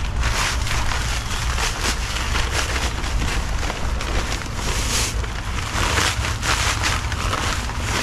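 Dry Quikrete concrete mix pouring out of an 80-pound paper bag onto a pile: a continuous gritty hiss with crackling and rustling of the paper sack.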